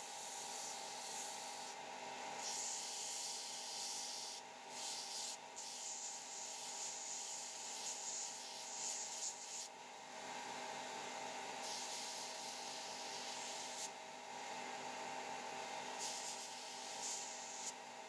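Bench belt sander running with a steady hum while a thin pick wire is pressed against its abrasive belt in repeated spells of a few seconds, each a high grinding hiss, sanding the wire's edges and shaping its tip.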